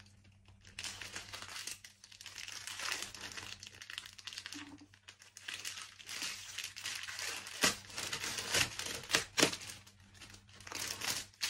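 Clear plastic saree packaging crinkling and rustling as the pouch is pulled open and handled, with a few sharper crackles in the second half.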